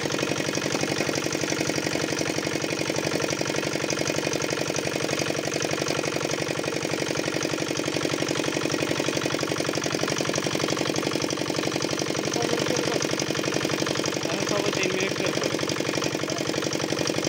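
An engine running steadily at an even speed, with a fast regular beat.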